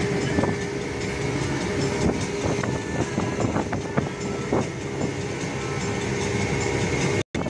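Speedboat engine running steadily at speed, with wind and water rushing past the hull and short knocks here and there. The sound cuts out for a moment near the end.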